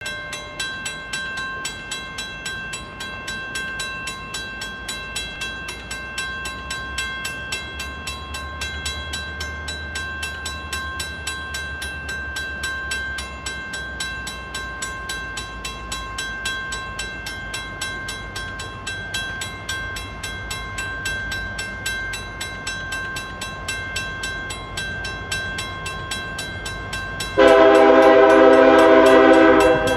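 Railroad crossing bell ringing with a rapid, steady ding while a train approaches, a faint low rumble underneath. Near the end a diesel locomotive's air horn sounds a loud long blast for the crossing.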